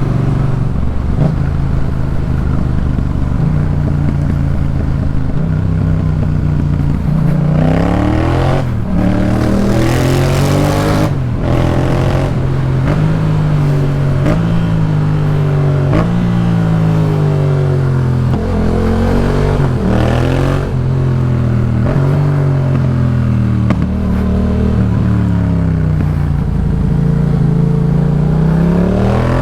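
2018 Yamaha MT-07's 689 cc parallel-twin engine running through a Jeskap K4 full exhaust while ridden: steady at first, then from about seven seconds in revving up and dropping back again and again as the rider accelerates and shifts gears, steadier after about twenty seconds and climbing again near the end.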